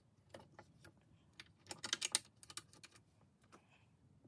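Light clicks and rattles of small plastic connectors and wires being handled and fitted at a fuse holder, with a quick run of louder clicks about two seconds in.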